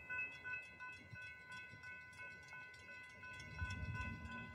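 Railroad grade-crossing bell starting up and ringing in a rapid, steady run of dings: the crossing has activated for an approaching train. A low rumble swells near the end.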